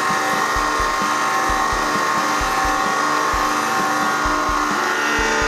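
Hydraulic press pump motor running with a steady whine while the ram presses down on a block of folded aluminium foil. Irregular low thuds sound underneath.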